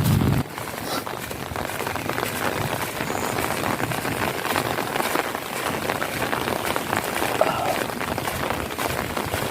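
Steady rain falling, a dense patter of drops hitting surfaces. A low rumble cuts off about half a second in.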